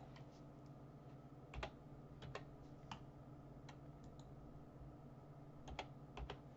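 Faint, irregular clicks of graphing-calculator keys being pressed to run the calculate-intersect function, over a low steady hum.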